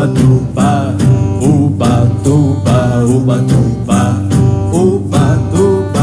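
A live band playing a children's song: singing over guitar, keyboard and drums, with an even percussion beat.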